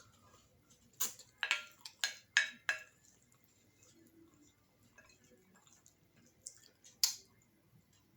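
Eating sounds at a meal: a run of five sharp clicks and smacks a little after a second in, then one more near the end.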